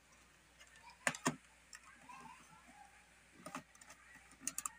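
Sharp clicks of a digital multimeter being handled: a pair of knocks about a second in, another later, then a quick run of clicks near the end as its rotary selector dial is turned.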